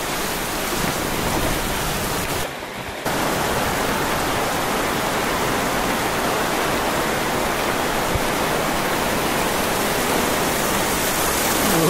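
Heavy rain falling steadily: a dense hiss of downpour on pavement and corrugated metal, briefly dropping away about two and a half seconds in. Near the end, runoff gushing off a roof edge and splashing onto the path joins the rain.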